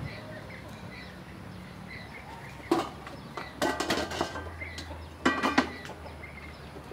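Stainless steel bowls clanking and ringing as they are handled, in three short clatters a second or so apart. Birds chirp faintly in the background.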